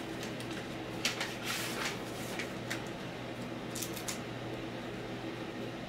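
Paper rustling and crinkling as envelopes and trading cards are handled, in short bursts about a second in and again around four seconds, over a steady low hum.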